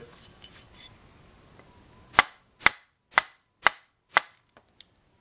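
A block of wood knocking five times, about two knocks a second, against the back of an airsoft pistol's slide to drive out the auto selector pin, followed by two faint clicks.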